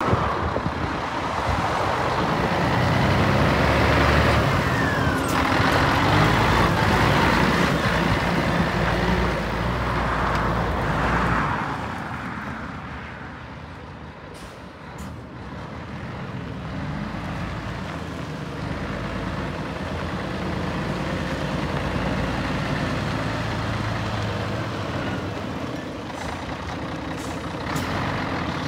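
Scania 124G 420 hook-lift truck's 12-litre inline-six diesel running as the truck drives on gravel. It is loud for the first ten seconds or so, fades as the truck pulls away, then grows louder again as it comes back.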